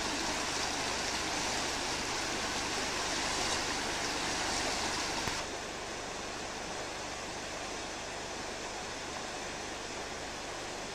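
Floodwater of a swollen river rushing past in a steady, even rush. About five seconds in it cuts to a somewhat quieter take of the same running water.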